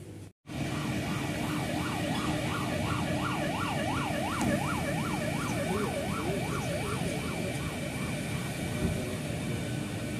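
Vehicle siren in a fast yelp, its pitch rising and falling about three times a second over a steady low hum. It fades out about eight seconds in.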